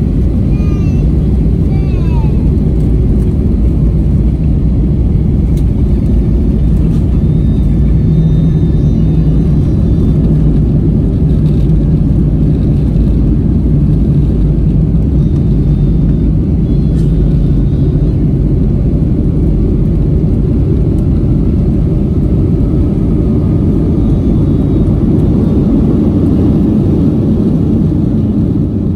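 Cabin noise over the wing of a Boeing 737-800: the CFM56 turbofan engines and rushing air make a loud, steady low rumble.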